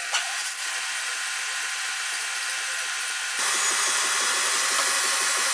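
Spindle running a boring cutter through a new bronze connecting-rod small-end bushing on the finishing pass to size, a steady machining hiss. About three and a half seconds in, the sound gets fuller and a little louder as the cut deepens.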